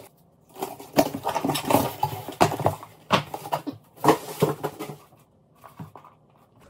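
Cardboard shipping box being opened and rummaged through by hand: dense rustling, scraping and knocking of cardboard and paper. It turns sparser and quieter for the last couple of seconds as a shoe box and its paper wrapping are lifted out.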